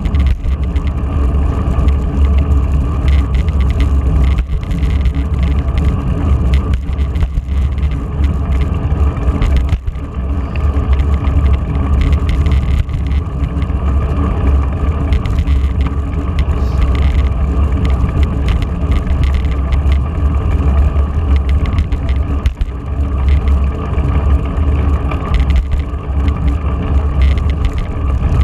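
Wind buffeting the microphone of a camera riding along with a road-bike pack at speed: a loud, steady, deep rumble, with tyre and road noise under it.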